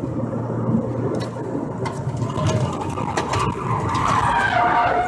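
Steady road and engine noise of a car driving at freeway speed, heard from inside the car. Over the second half, a faint wavering sound rises above the rumble.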